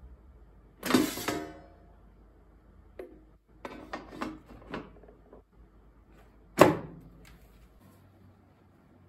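Plastic basket drawer of a Dessini air fryer being handled: a loud clunk about a second in as it is pulled out, a few lighter knocks and rattles, then a sharp clack about two-thirds of the way through as it is pushed shut.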